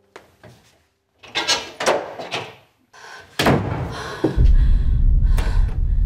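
A door being handled, with latch clicks and knocks, then a hard slam about three and a half seconds in. A deep, loud low rumble sets in just after the slam and continues.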